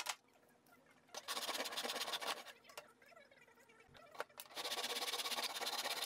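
Hand saw cutting a thin wooden shim in a plastic miter box: two short runs of back-and-forth sawing strokes, one about a second in and one near the end, with a single click between them.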